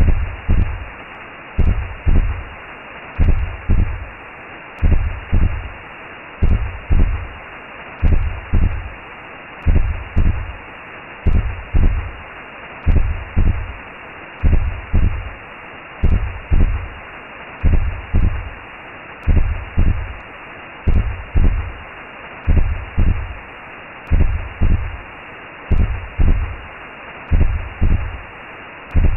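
Recreated womb sound: a steady whooshing hiss with a low double heartbeat thump, lub-dub, repeating evenly about every one and a half seconds.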